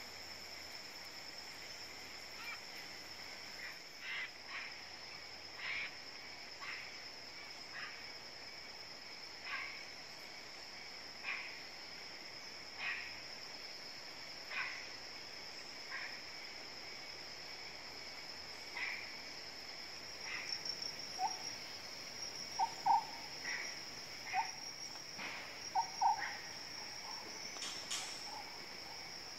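Tropical forest ambience: a steady high insect drone, with a bird's short call repeating every second or two. About two-thirds of the way through, louder, lower-pitched short calls join in.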